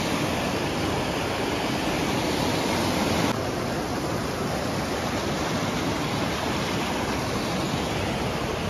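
River water rushing steadily. The sound dips slightly and loses some of its hiss a little over three seconds in.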